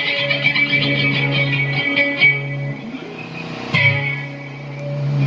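Amplified guitar playing sustained chords during a sound check, with a fresh strum about two seconds in and another just before four seconds, each left to ring out.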